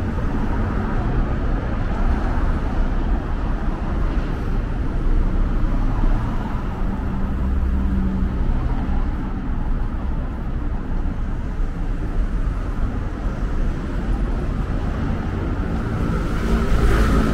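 Steady city road traffic: cars and other vehicles running along a busy multi-lane street in a continuous low rumble, swelling briefly near the end.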